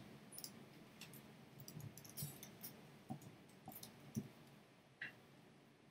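Faint, irregular clicks of a computer keyboard as a short label is typed.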